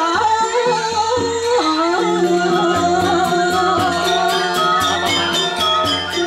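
Balinese gamelan orchestra playing Legong dance music: metallophones struck in a quick even pulse, with a melody line that bends in pitch above them and a held low tone entering about two seconds in.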